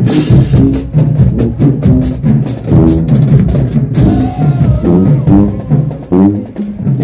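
High school marching band playing loudly: sousaphones, mellophones and saxophones over a pounding drumline, with a crash near the start and another about four seconds in.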